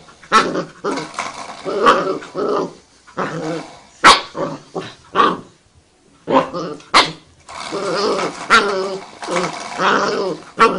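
A dog growling in irregular stretches that rise and fall in pitch, with two sudden sharp barks about four and seven seconds in.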